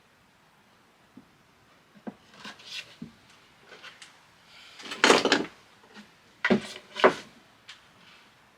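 Plywood drawers being slid in and out of a small wooden chest: wood rubbing on wood and knocking as they seat, with a few light knocks first and louder slides and knocks in the second half.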